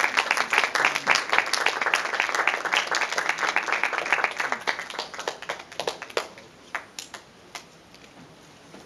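Audience applauding: dense clapping that thins out after about four seconds to a few scattered claps and dies away.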